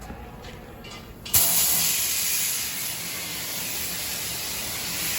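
Compressed air hissing steadily from an air line as a tire is inflated. It starts suddenly about a second and a half in, after a few faint clicks.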